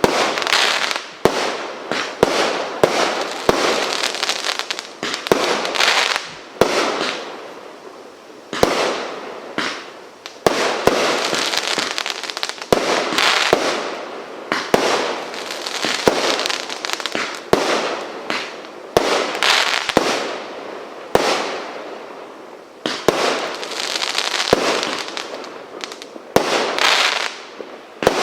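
Fireworks being fired in a long sequence: sharp shots and bangs every second or two, each followed by a swell of crackling hiss.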